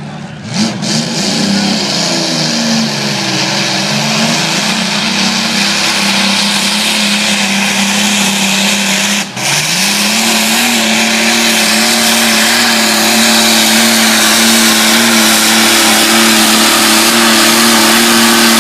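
Rolls-Royce Merlin V12 aircraft engine in a modified pulling tractor, running hard at high revs under load as it drags the weight sled. The pitch wavers at first, dips sharply about nine seconds in, then climbs back and holds steady and loud.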